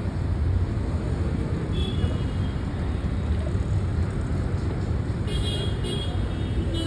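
Steady low rumble of street traffic, with faint brief higher tones about two seconds in and again after five seconds.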